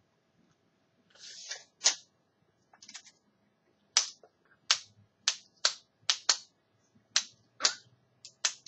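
Tape measure clicking over and over: a short sliding rasp about a second in, then roughly ten sharp clicks at uneven intervals, some in quick pairs.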